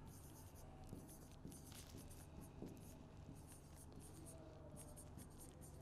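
Faint scratching strokes of a marker writing words on a board, one short stroke after another.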